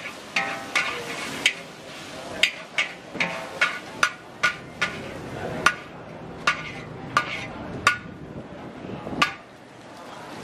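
Metal spatula scraping and striking a large wok while stir-frying char kway teow noodles: irregular ringing metallic clanks, about two a second, stopping about a second before the end.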